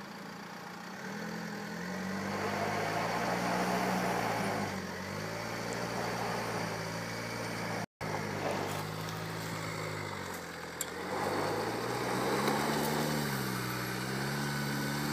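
Range Rover Evoque's engine pulling under load off-road, its pitch rising and falling as the throttle is worked, with tyre and ground noise. The sound cuts out for an instant about eight seconds in.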